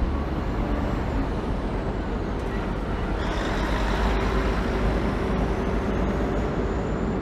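Mercedes-Benz semi-truck with a loaded trailer running and driving off, a steady low diesel rumble. A hiss of air joins it about three seconds in and carries on.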